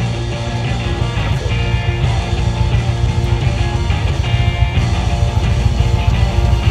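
Background rock music with guitar, held notes over a steady beat.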